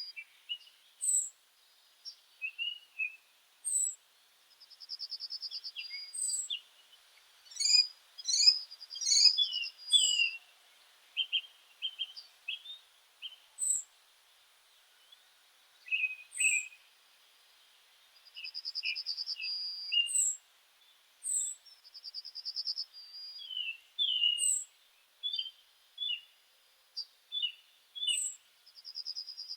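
Several meadow birds singing and calling, with short buzzy trills, quick high chirps and falling notes that overlap and come in bouts. A louder cluster of sweeping calls comes about eight to ten seconds in.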